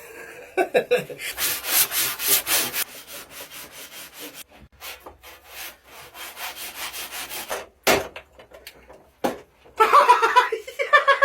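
Bahco 244 handsaw cutting through a large log by hand, rasping back and forth in steady strokes, louder in the first few seconds and fainter after. Two sharp knocks come about eight and nine seconds in.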